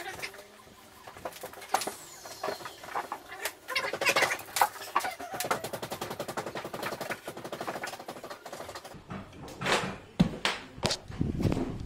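Cordless impact driver hammering in a fast rattle as it drives screws into timber bracing. Scattered knocks of wood come before it, and a few thumps near the end.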